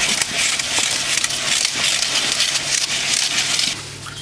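Rice grains pouring in a stream from a clay pot into another clay pot, a steady grainy hiss that dies away near the end. A steady low hum runs underneath.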